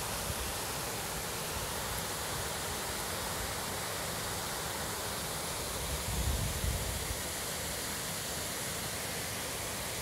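Steady rush of a waterfall pouring from a rock ledge into a pool: an even, unbroken hiss across high and low pitches. About six seconds in, a brief low rumble swells under it.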